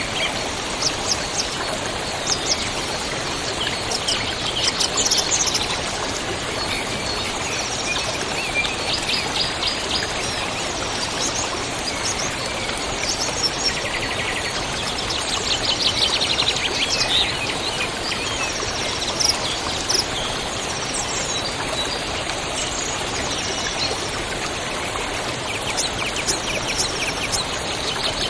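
Small birds chirping and trilling over the steady rush of a flowing river.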